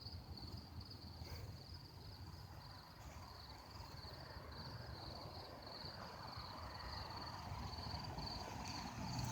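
Crickets chirping: a faint, high, steadily pulsing trill over low outdoor rumble that grows slightly louder near the end.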